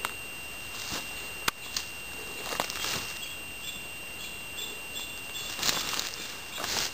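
Rustling and crunching of forest undergrowth, in several short irregular bouts, with a sharp click about a second and a half in. A steady high-pitched tone runs underneath.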